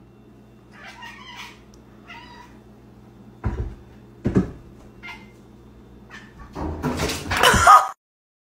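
Domestic cat meowing several times, with two thumps as it paws against a refrigerator door. A louder, wavering meow comes near the end, over a steady low hum.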